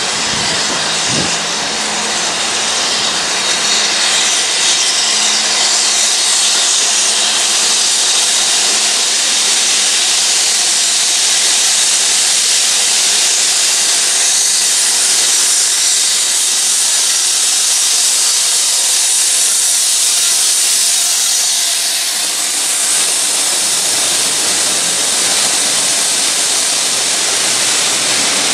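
BR Britannia-class 4-6-2 steam locomotive 70014 and its coaches running through a station, heard as a loud, steady hiss.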